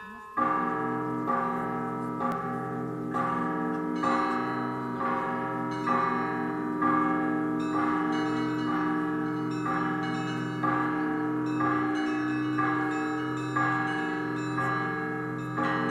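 Festive Russian Orthodox bell ringing from a monastery belfry. Several bells are struck together in an even rhythm of about one accented stroke a second, over the sustained hum of a deep bell. The ringing sets in with a loud stroke about half a second in.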